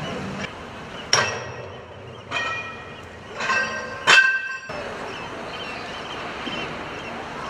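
Ringing metallic clangs as steel is struck, four strikes a second or so apart over the first half, the fourth the loudest, each leaving a bell-like ring.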